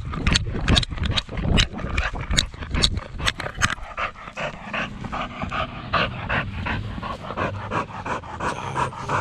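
Pit bull panting hard and rhythmically, several breaths a second, worn out from playing fetch.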